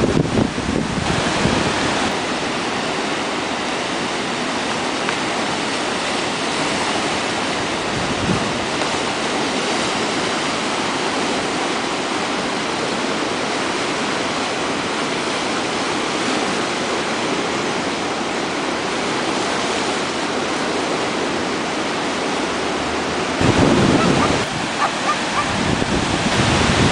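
A river in flood, swollen by record rainfall, rushing through standing waves and whitewater in a loud, steady, even rush of water. About three seconds before the end, low buffeting on the microphone briefly rises above it.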